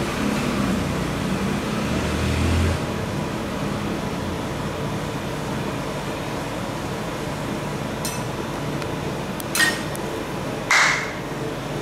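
Steady hum of a rolled ice cream machine's refrigeration fan and compressor running under its frosted cold plate. A brief low thump comes about two seconds in, and two short sharp sounds come near the end.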